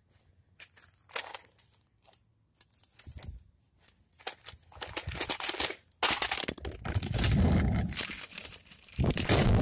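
Footsteps crunching over gravel and grass with crackly phone handling noise. About six seconds in, a sudden loud, continuous rushing rumble sets in over the phone's microphone as the phone moves fast.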